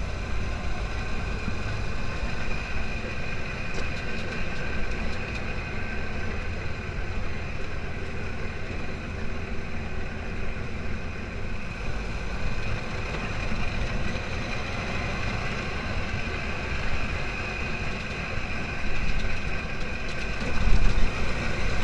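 Engine of an open-frame off-road buggy running steadily while driving along a dirt track, with a low rough rumble from wind and the bumpy ground. It gets louder near the end.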